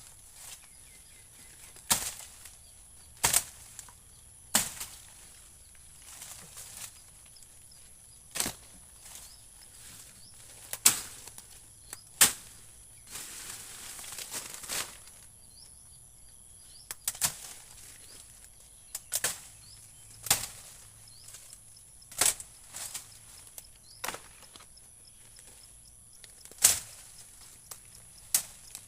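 A blade chopping into wood, single sharp strikes at an uneven pace, about one every one to three seconds, with a short stretch of rustling partway through. A faint steady high-pitched whine runs underneath.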